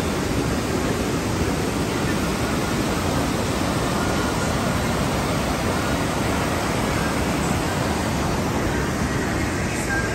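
Swollen, muddy river in flood rushing over boulders: a steady, loud whitewater rush.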